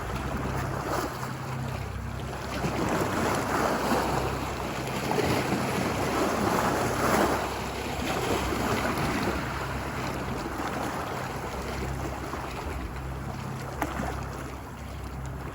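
Ocean surf washing ashore, with waves swelling louder twice in the first half and then settling to a steadier wash. A low steady rumble runs underneath.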